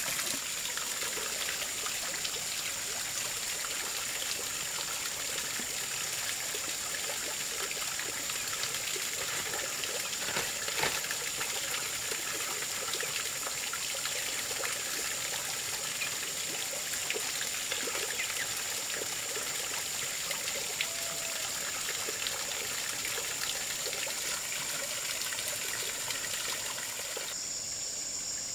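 Water pouring from a hose into a pond, a steady trickling splash, with a thin, steady high-pitched whine above it.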